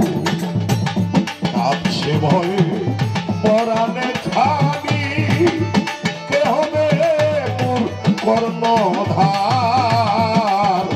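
Baul folk song: a man singing with a wavering, vibrato-laden voice through a PA, over a steady rhythm of hand drums.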